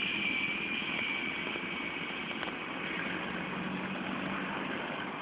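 Jet airliner engines running at a distance, a steady high turbine whine over a low rumble, the whine sinking slightly in pitch.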